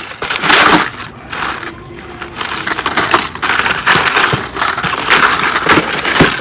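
Plastic blister packs of fishing lures on cardboard backing cards crinkling and clacking against each other as hands dig through a full bin of them, in loud irregular bursts.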